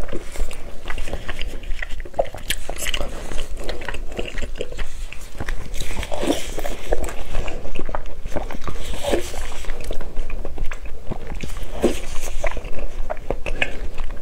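Close-miked eating: biting into and chewing a piece of cooked meat, with wet mouth sounds, irregular small clicks and a few louder bites spread through.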